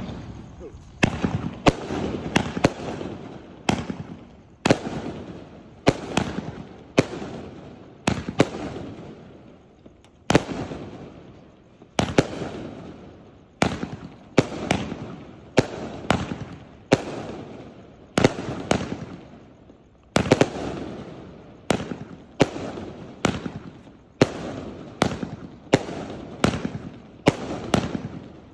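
A 320-shot consumer fireworks cake firing a long string of sharp shots, about one or two a second, each one dying away before the next.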